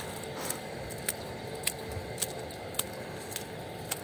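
Footsteps walking at a steady pace along a footpath, one short sharp step sound about every half second.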